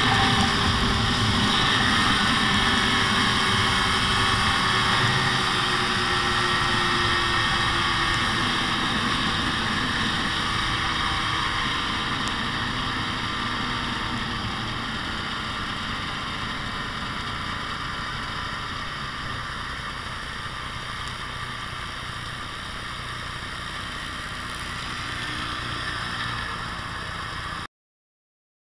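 Arctic Cat snowmobile's two-stroke engine running at cruising speed, heard from on board. It slowly gets quieter and cuts off abruptly near the end.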